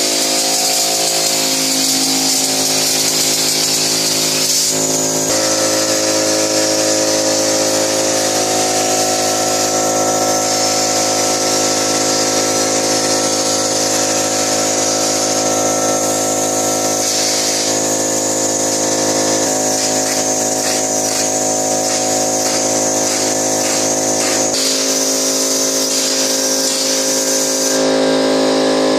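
Drywall texture hopper gun spraying on compressed air: a steady high hiss over a steady motor hum. The sound changes abruptly about five seconds in and again near the end.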